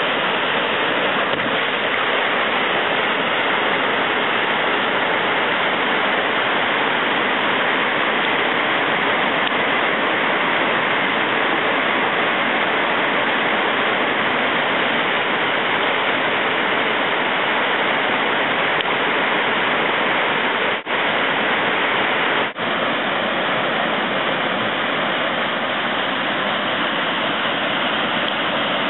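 Whitewater rushing over a waterfall: a steady, dense rush of water noise. It cuts out briefly twice, about three-quarters of the way through.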